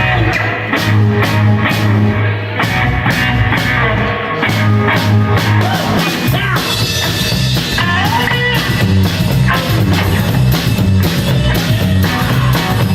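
Live rockabilly band playing an instrumental intro, with a drum kit keeping a steady, driving beat under guitar and a strong bass line.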